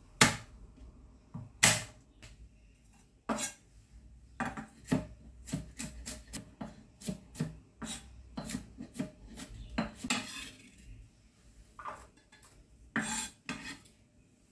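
Chef's knife chopping and mincing garlic and shallots on a wooden cutting board: irregular sharp knocks of the blade on the board, a few of them louder.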